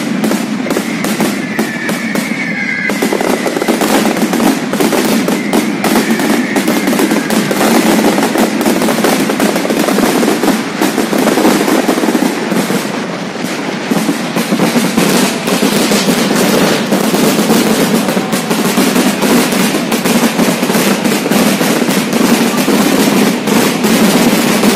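Fireworks display going off as a dense, rapid barrage of bangs and crackles that runs together into an almost continuous rattle, with a few whistling shells in the first seconds.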